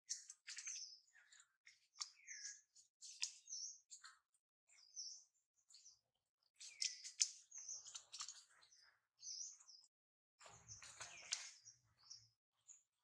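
Faint, irregular high-pitched animal chirps and squeaks mixed with scattered clicks, coming in clusters that are busiest about seven and eleven seconds in.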